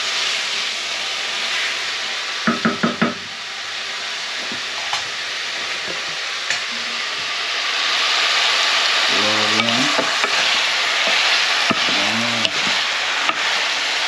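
Chopped vegetables sizzling as they fry in oil in an aluminium pot while being stirred with a wooden spoon. There is a quick run of four knocks a few seconds in, and the sizzle gets louder about halfway through.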